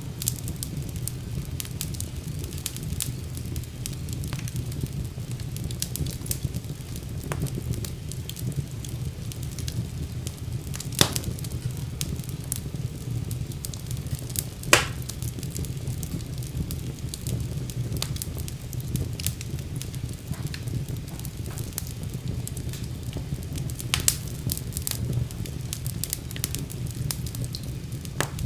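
Wood fire burning in a fireplace: a steady low rumble of flame under constant small crackles, with three louder sharp pops spread through.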